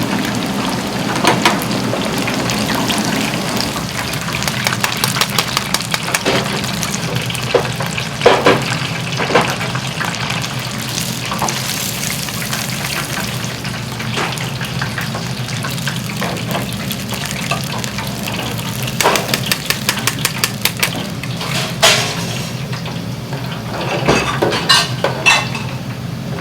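Food sizzling as it fries, with frequent clicks and clinks of utensils against the pan in clusters.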